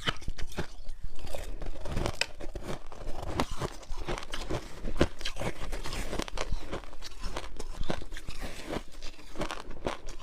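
Close-miked bites into frozen passion fruit ice, a rapid irregular series of sharp crunches and cracks as the ice breaks between the teeth.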